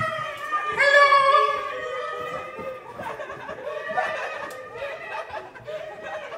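A man's voice making wordless drawn-out calls and laughter, the calls rising and falling in pitch, loudest about a second in.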